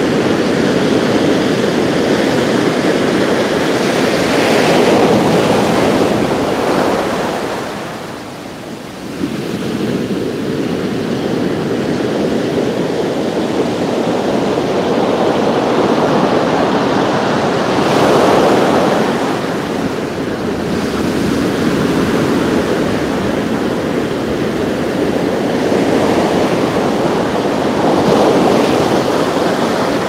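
Ocean surf breaking and washing up onto a sandy beach: a continuous rush of water that swells and eases every several seconds, with a brief lull about eight seconds in.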